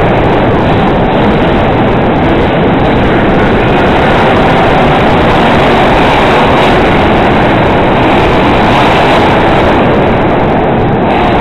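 Monster truck engines running hard, loud and steady throughout, filling the recording nearly to its limit.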